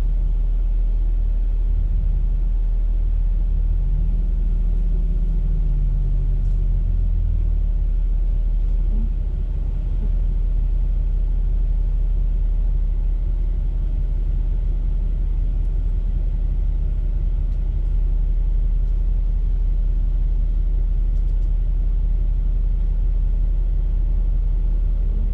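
Jeep engine running with a steady low rumble, revving up and back down briefly about four seconds in.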